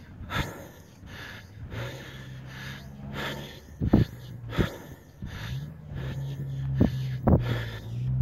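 A person breathing heavily close to the microphone, in short irregular puffs, with a low hum in the breath for a couple of seconds at a time.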